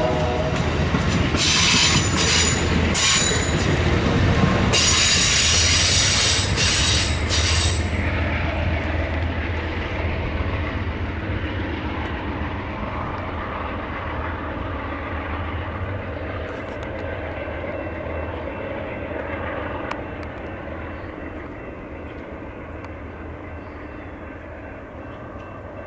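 Amtrak Superliner passenger cars rolling past on jointed track, with high-pitched wheel squeal for the first several seconds. The rumble then fades steadily as the train pulls away around the curve.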